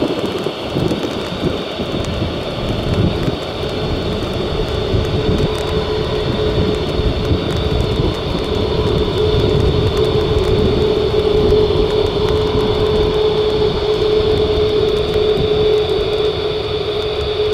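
Airbus A330 airliner's twin jet engines running steadily as it taxis along the runway: a deep rumble with a steady hum and a high fan whine, a little stronger after the first few seconds.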